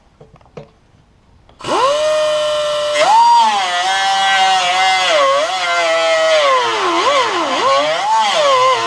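Handheld power cutting tool starting up about one and a half seconds in and cutting through the rusted sheet steel of a car's quarter panel. Its high whine drops in pitch several times as the wheel bites under load, then recovers.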